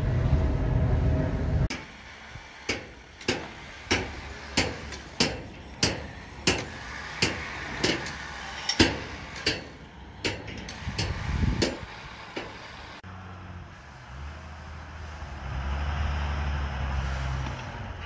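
An airliner passing high overhead makes a steady low rumble that cuts off abruptly at about two seconds. Then a hammer strikes construction formwork about every two-thirds of a second, a dozen or so blows, giving way to a low steady machine rumble for the last few seconds.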